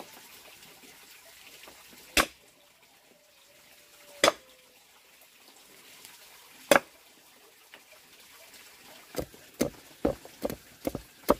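Cleaver chopping on a thick wooden block: three single sharp strikes a couple of seconds apart, then quicker chopping at about two strokes a second from about nine seconds in.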